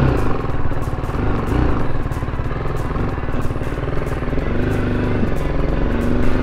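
BMW motorcycle engine running as the bike pulls away slowly, its pitch rising near the end as it picks up speed.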